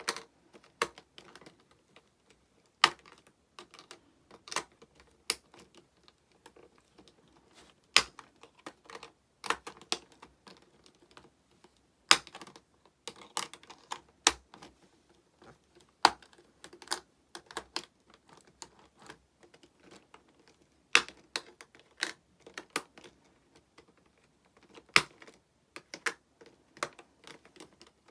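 Irregular sharp clicks and taps of hard plastic pieces being handled and set down, some louder knocks among lighter clicks.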